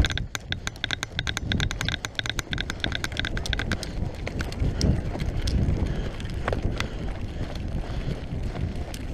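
An airsoft rifle firing a fully automatic burst: a fast, even run of sharp clicks, about ten a second, for roughly three and a half seconds. Heavy thudding footfalls and movement against the microphone run throughout.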